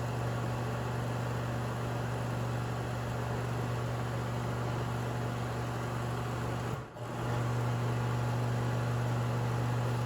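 Ansco Regent slide projector running, its cooling blower fan and motor giving a steady hum with a rush of air. About seven seconds in the sound briefly cuts out and comes back.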